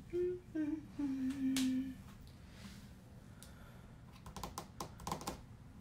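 A woman humming a few held notes that step downward over the first two seconds. Near the end there is a quick run of light clicks and taps.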